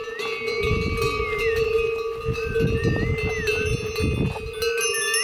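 Bells on a passing train of pack yaks ringing steadily, with high whistling notes that slide up, hold and drop several times over the bells.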